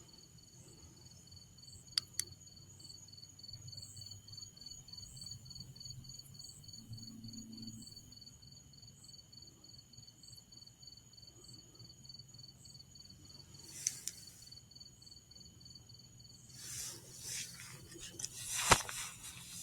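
Faint steady chorus of insects chirping, a high pitched, evenly pulsing trill that keeps up throughout. Two sharp clicks come about two seconds in, and a louder click comes near the end.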